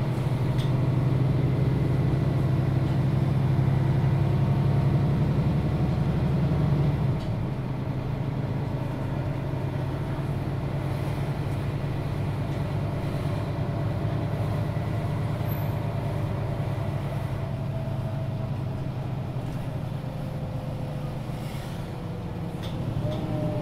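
Mercedes-Benz O530 Citaro G articulated bus heard from inside while under way. The diesel engine drones under load, then drops to quieter running about seven seconds in. In the second half a thin whine slowly falls in pitch.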